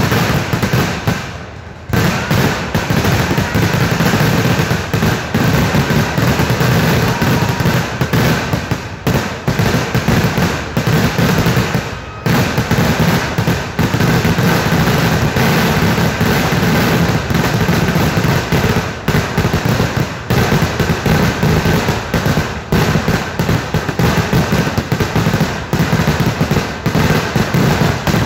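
Temple-festival vedikettu fireworks barrage: firecrackers going off in a dense, continuous run of rapid bangs and crackles. There is a brief lull about a second and a half in, and another short gap near the middle.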